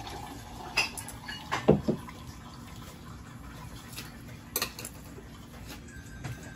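Meat sizzling steadily on an electric countertop grill, with a few sharp clicks and knocks of tableware and utensils; the loudest knock comes just under two seconds in.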